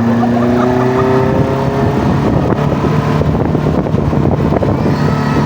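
Offroad vehicle's engine running steadily under way, its pitch rising a little over the first two seconds, with rough rumbling noise from the ride.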